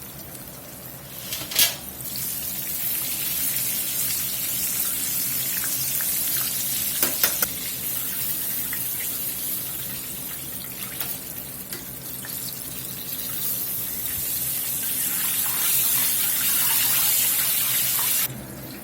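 Chicken frying in a skillet of hot canola oil: a steady, high sizzle, with a sharp click about one and a half seconds in and a few more clicks about seven seconds in. The sizzle cuts off suddenly near the end.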